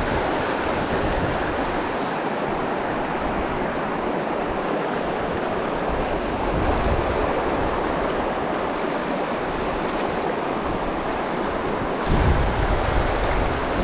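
River water rushing steadily over boulders and through shallow rapids, with wind buffeting the microphone at times, most strongly near the end.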